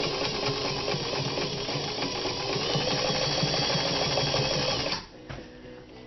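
Electric Singer Fashion Mate 223 sewing machine running steadily, zigzag-stitching through a thick, many-times-folded denim jeans leg with heavy seams and taking it easily. It stops abruptly about five seconds in, leaving only a few faint clicks.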